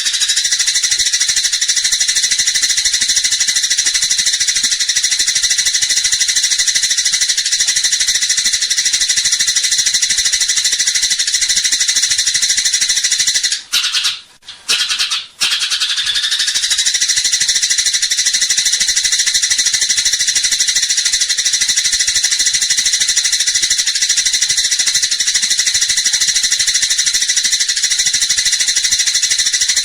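Eurasian tree sparrow's dense, rapid chattering fighting call, running on almost without pause and breaking off twice briefly about halfway through.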